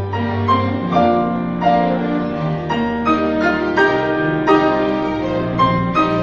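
Grand piano played with a string ensemble: a melody of struck piano notes, about two a second, over held string notes.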